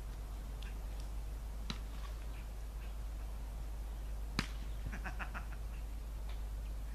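Outdoor background with a low steady rumble, a faint sharp smack about a second and a half in and a louder one a little past halfway, followed at once by a quick run of short high chirps.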